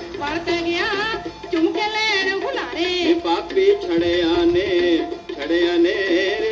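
Punjabi folk song playing from a vinyl record on a portable suitcase turntable: a wavering melody over a sustained lower line.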